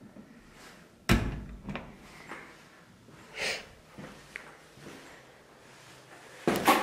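A door pushed shut, its latch catching in the metal strike plate with one sharp bang about a second in, followed by a lighter click. Near the end comes a short run of louder knocks and scuffs.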